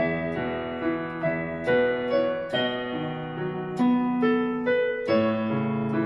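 Portable electronic keyboard on a piano sound, played with both hands in E major: single notes struck about every half second over held low chords.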